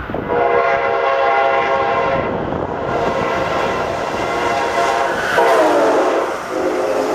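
Amtrak train passing through at speed while its locomotive sounds a multi-note air horn in long blasts. Around five and a half seconds in, as the locomotive goes by, the chord slides down in pitch and carries on lower, over the steady rumble of the passing train.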